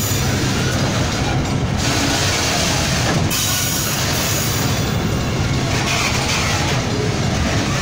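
Loaded freight wagons rolling past close by: a steady rumble and rattle of steel wheels on the rail.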